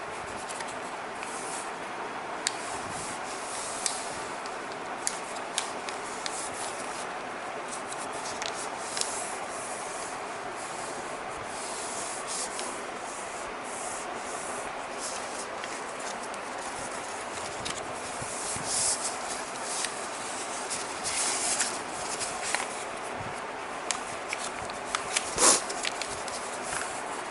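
A sheet of paper being folded and creased by hand on a wooden desktop: fingers rub and slide along the folds, with many sharp paper crackles and a few louder rustles near the end.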